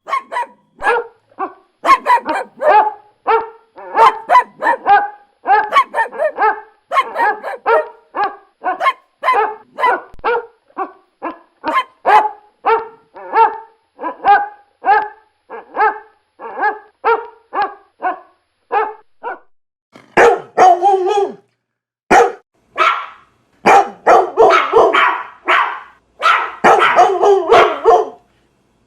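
A dog barking over and over in short barks, about two a second. After a short pause about twenty seconds in, the barking comes louder and denser in quick runs.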